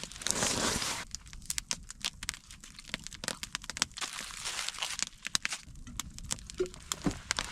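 Wood fire crackling with many irregular sharp pops, and a rustling crinkle in about the first second.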